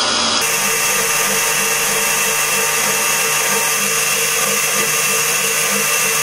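Electric stand mixer running steadily at speed, its wire whisk whipping egg whites into an Italian meringue.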